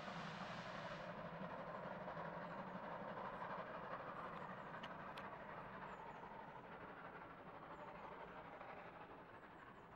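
Steam-hauled train with locomotives 01 509 and 52 8079 working up a steep grade, heard receding into the distance and fading steadily.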